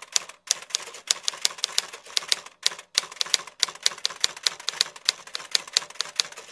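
Typewriter key-click sound effect for on-screen text typing itself out: a fast run of sharp clacks, about eight to ten a second, with a few brief pauses.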